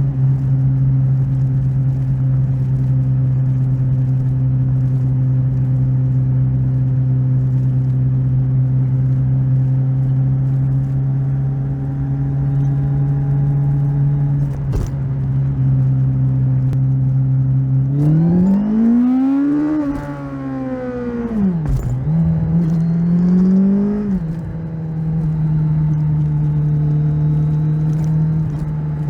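Kawasaki Z1000SX's inline-four engine heard from the bike while riding: steady revs over wind rush for most of the stretch, then about two-thirds through the pitch rises and drops several times as the rider works the throttle, before settling at a steady, slightly higher pitch and easing off near the end.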